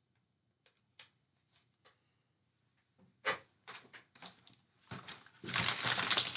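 Shopping bag being rummaged through: a few faint clicks and a knock, then rustling and crinkling that grows loud near the end as an item is pulled out.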